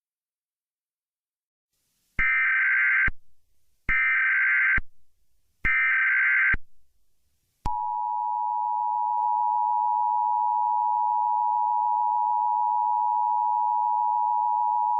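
Emergency Alert System broadcast tones: three short bursts of SAME header data, each just under a second long and about a second apart, come after a brief silence. From about halfway through, the steady two-tone EAS attention signal sounds as one unbroken, harsh tone, announcing an emergency message.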